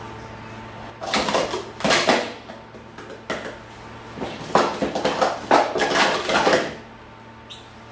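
Gold PS2X plastic sport-stacking cups clattering as they are stacked up and down at speed on a stack mat. It comes as quick runs of clicks from about a second in, with a brief pause partway through.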